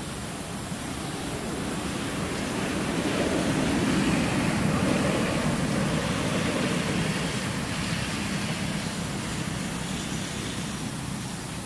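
A vehicle passing: a low rushing hum that swells over the first few seconds, peaks about four seconds in, then slowly fades, over a steady background hiss.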